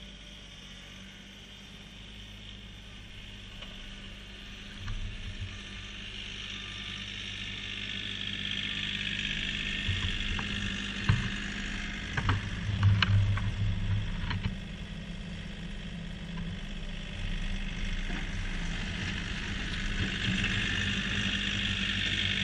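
Kioti CK3510 compact tractor's three-cylinder diesel engine running while it pushes snow with a front-mounted pusher, growing louder as it draws near. A few sharp knocks about halfway through are the loudest sounds.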